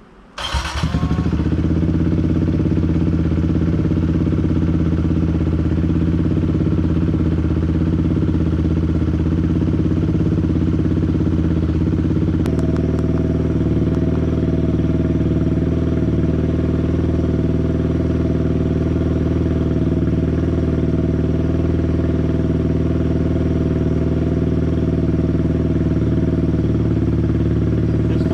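Kawasaki Z125 Pro's 125 cc single-cylinder engine starting on a freshly fitted battery, catching at once, then idling steadily. Its tone shifts slightly about twelve seconds in.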